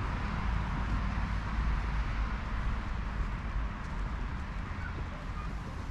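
Steady outdoor noise: an even hiss with a low, fluttering rumble of wind on the microphone.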